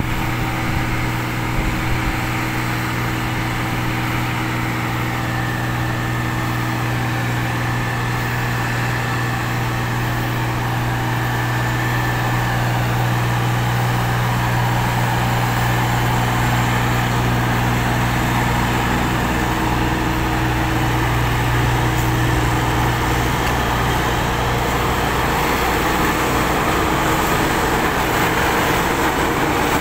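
Heavy diesel engines of tipper trucks and an asphalt paving machine running steadily, a deep, even drone with clear engine tones. About twenty seconds in the higher tones fade and a rougher, broader noise grows.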